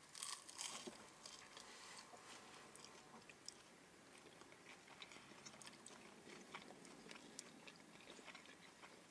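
Quiet biting and chewing of breaded fried cheese sticks, with small soft crunches scattered throughout; the breading is only lightly crisp.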